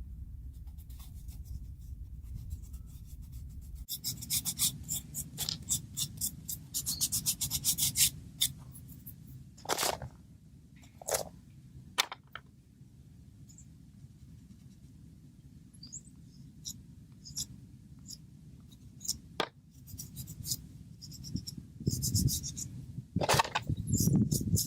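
Close rustling, rubbing and scraping of hands working small natural materials and hand tools, over a low steady rumble. A run of rapid crackling clicks starts about four seconds in, and a few single sharp clicks or snips follow around ten to twelve seconds in and again near twenty seconds.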